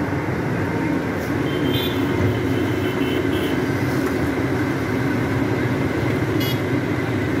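Doosan DX225LCA crawler excavator running steadily as it digs, its diesel engine giving a continuous low drone.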